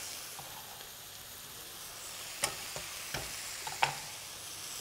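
Food sizzling steadily as it fries in oil in a black wok, with chopped coriander and chillies just added on top. Three sharp knocks come in the second half.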